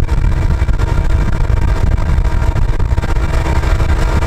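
Steady loud low rumble of a moving road vehicle keeping pace alongside a freight train: road and wind noise mixed with the running diesel locomotive beside it.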